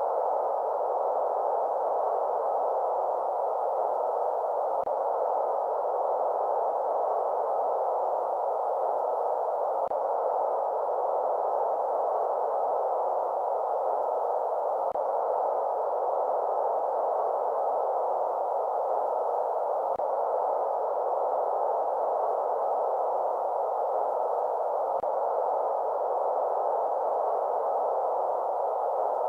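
Steady electronic white noise played to lull a baby to sleep, heard as an even, unchanging hiss centred in the middle range with almost nothing high. A faint click comes about every five seconds.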